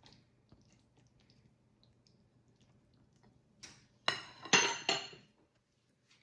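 A mixing utensil clinking against a mixing bowl while batter is stirred: a light tap, then three loud ringing clinks about half a second apart past the middle.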